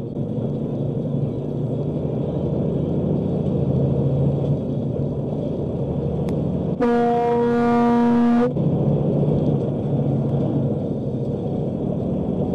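Semi truck's engine and road noise running steadily, with one horn blast of about a second and a half a little past halfway through.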